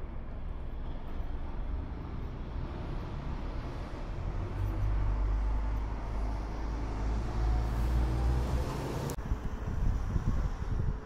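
Street traffic: a motor vehicle's low rumble builds and passes close, and cuts off suddenly about nine seconds in. Uneven gusts of wind on the microphone follow.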